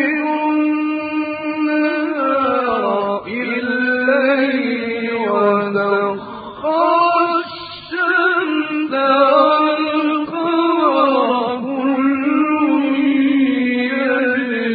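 A male Quran reciter chanting in the melodic mujawwad style, holding and bending long ornamented notes, with short breaks for breath about halfway through.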